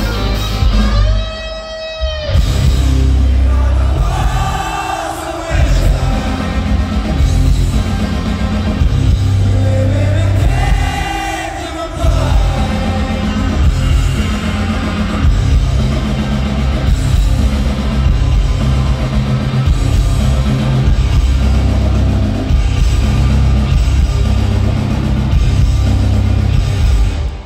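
Live rock band playing loud, with electric guitars, bass and a drum kit; the song ends abruptly near the end.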